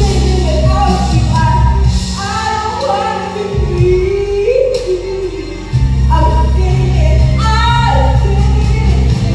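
A solo singer performing a musical-theatre song over a recorded backing track. The low accompaniment drops out for about two seconds in the middle, leaving the voice nearly alone, then comes back in.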